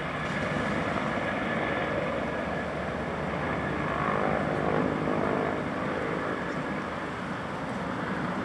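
Firefighting helicopter in flight, a steady rotor-and-engine drone that swells a little about four seconds in.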